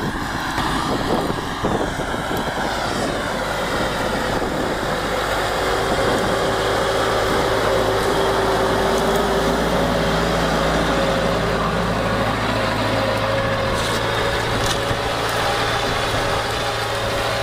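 Tümosan tractor's diesel engine running steadily under load as it pulls a spring-tine cultivator through the soil, a little louder through the middle as it comes close and passes.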